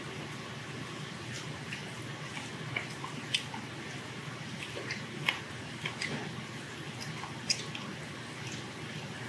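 Eating cold buckwheat noodles (naengmyeon): chewing and wet mouth sounds, with a few sharp clicks of metal chopsticks against the stainless steel noodle bowl, over a steady background hum.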